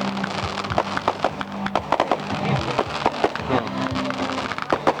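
Fireworks bursting in quick succession: a dense crackle of many sharp pops and bangs with no let-up.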